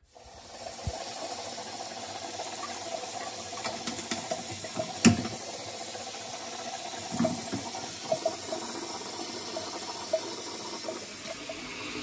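Bathroom sink tap running steadily, with small clicks of things being handled and one sharp knock about five seconds in.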